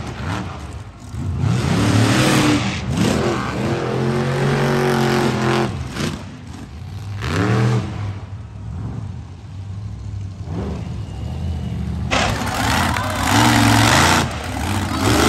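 Monster truck engines revving hard in repeated surges, pitch climbing and falling, with a quieter stretch in the middle and the loudest burst near the end.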